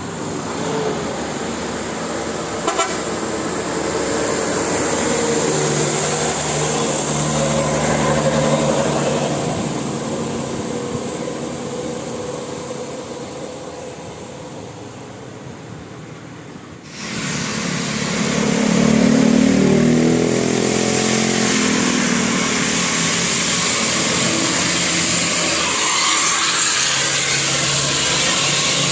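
Bus telolet horn, a multi-tone musical air horn, tooting its melody over vehicle noise. The sound cuts off abruptly about seventeen seconds in, and another horn passage follows.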